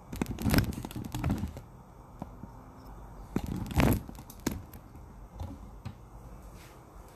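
Handling noise: two bursts of knocks and scrapes, each about a second long, one near the start and one about three and a half seconds in, with a few lighter clicks after.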